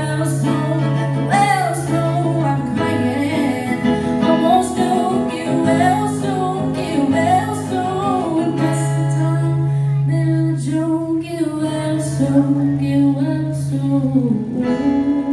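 A woman singing to her own acoustic guitar accompaniment in a live solo performance.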